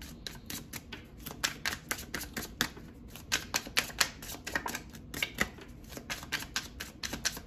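Tarot deck being shuffled by hand: a rapid, irregular run of crisp card clicks and flicks.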